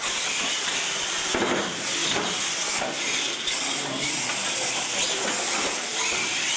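Two radio-controlled monster trucks racing side by side on a concrete floor, their motors and tyres making a loud, steady noise that starts abruptly at the launch.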